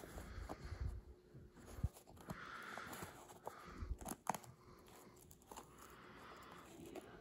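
Handmade paper box being handled and opened: paper sliding and rubbing against paper in soft hissy strokes, with light taps and a couple of sharp clicks about four seconds in.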